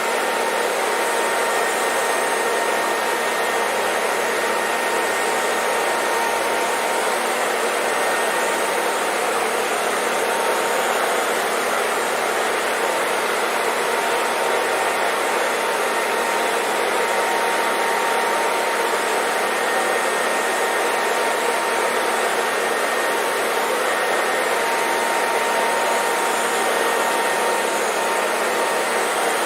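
Hair dryer blowing steadily: an unbroken rush of air with a faint steady whine from its motor.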